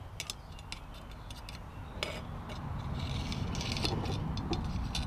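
Light clicks from a hand-pump oil can being squeezed as oil is dripped along a hedge trimmer's cutting blade, over a low rumble that grows louder in the second half.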